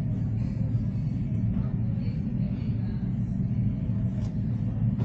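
Steady low rumble of airport background noise, even and unbroken.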